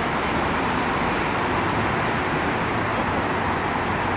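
Steady noise of road traffic passing on the street.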